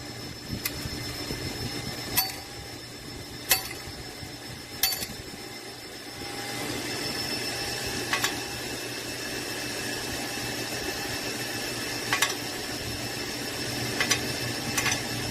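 JY 1525 cam-type automatic lathe running, a steady machine hum with sharp metallic clacks every second and a half or so at first, then fewer. The running noise grows a little louder about six seconds in.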